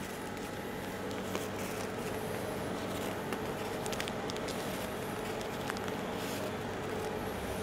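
Crisp meringue crust crackling as a piping nozzle presses and drags over it while whipped cream is piped on: scattered small clicks and crunches over a steady hum.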